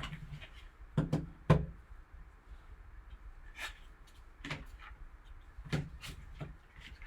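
Handling noises as sealed packaging is opened to get at a graded trading card in its hard plastic case: scattered light knocks and clicks, the loudest about a second and a half in.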